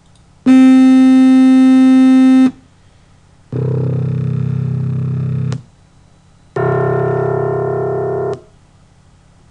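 Three computer-synthesized tones played one after another through speakers, each held steady for about two seconds with about a second of quiet between them. The first is a single bright pitched tone and the loudest. The next two are lower, fuller sums of pure sine tones built to imitate a piano's low C1 note.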